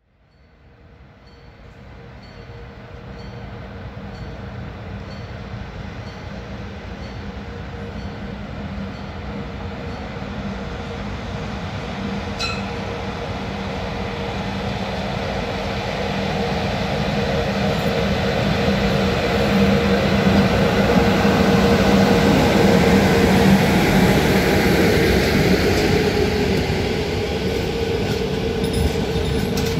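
An electric locomotive hauling a passenger train approaches and passes close by. Its steady hum and the rumble of the coaches grow louder, are loudest about three-quarters of the way through, then ease slightly, with a few wheel clicks over rail joints near the end.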